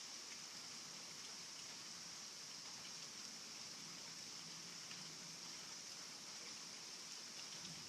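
Heavy rain falling steadily: an even hiss with scattered drop ticks, no thunder.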